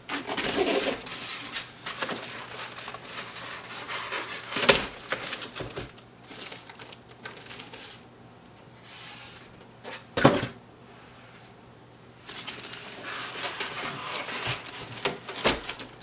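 Styrofoam packing being pulled away and a plastic bag rustling as a boxed printer is unpacked, with two sharp knocks, about five and ten seconds in.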